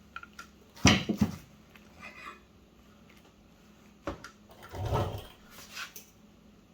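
Steel automatic-transmission parts being handled and pried on a workbench: a few separate metal clanks and knocks, the loudest about a second in, and more around four and five seconds in.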